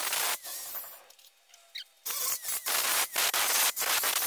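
Angle grinder with an abrasive sanding disc working over a steel body panel: a harsh rasping hiss that catches and lets go in quick pulses. It stops for about a second, then picks up again at about two seconds in.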